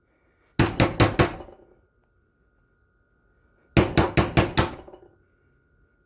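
Rapid knocking in two bursts of four or five quick raps each, about three seconds apart.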